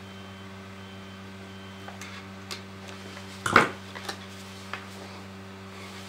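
Wire strippers working on a heater's thin white power lead: a few small clicks and one sharper snap about halfway through, over a steady low electrical hum.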